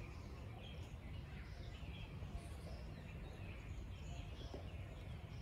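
Birds chirping and calling here and there among trees, faint, over a steady low rumble of outdoor background noise.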